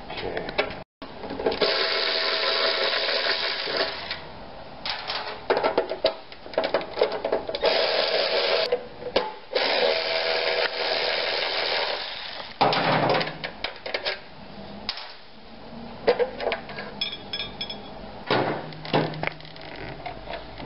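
Parts being handled on a Honda VTX motorcycle: the chrome cover and plastic coolant reservoir scrape, rustle and knock against the frame in irregular bursts, with a few longer stretches of rubbing.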